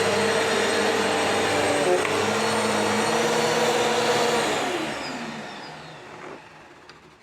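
Vacuum cleaner running steadily, then switched off a little past four seconds in, its motor whine falling in pitch and fading as it spins down.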